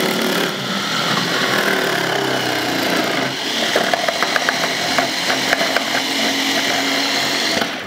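Bullet mixer grinder's motor running with the slicer/grater disc attachment while a carrot is pushed through the feed tube and shredded, with a rapid ticking in the middle as the carrot is pressed into the disc. The motor cuts off just before the end.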